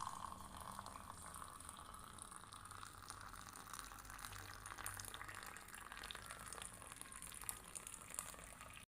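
Pot of homemade bilimbi-flower cough syrup boiling: a faint, steady bubbling hiss with small crackling pops. It cuts off suddenly just before the end.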